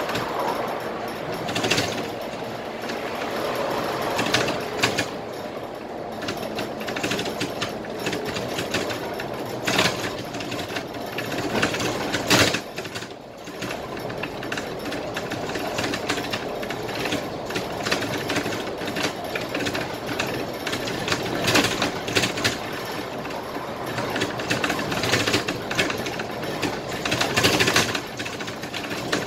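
Cab noise of a Scania K320IA bus under way: a steady rumble of engine and road with frequent rattles and clunks from the bodywork and fittings, and a few sharper knocks, the loudest about twelve seconds in.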